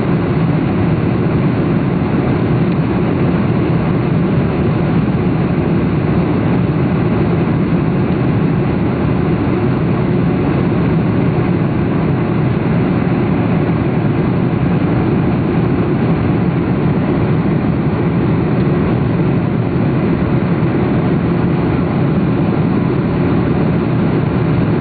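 Jet airliner in flight heard from inside the passenger cabin: a steady, low-pitched drone of engines and rushing air.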